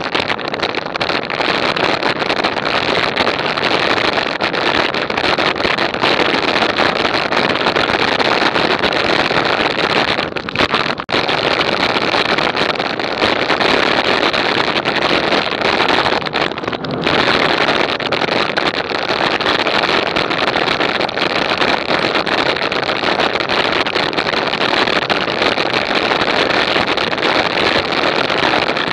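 Wind rushing over an action camera's microphone while riding at speed: a loud, steady rush of noise that drops briefly about ten seconds in and again about seventeen seconds in.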